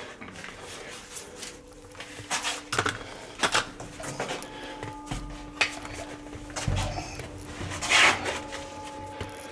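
Scattered light knocks, clicks and rubbing noises over a faint steady hum, with a louder, longer scraping noise about eight seconds in.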